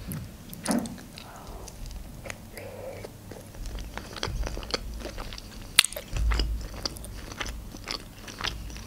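Close-miked biting and chewing of a baked sushi roll: many small wet mouth clicks and smacks, with a louder stretch of chewing about six seconds in.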